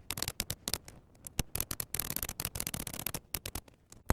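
Brother Charger 11 manual portable typewriter being typed on key after key, the type bars clacking in a quick irregular run with short pauses. The keys are being tested one by one after repair.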